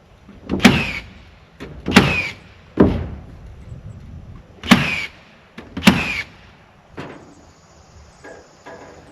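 Five sharp hammer blows, roughly one to two seconds apart, each with a brief ring, then a few fainter knocks near the end.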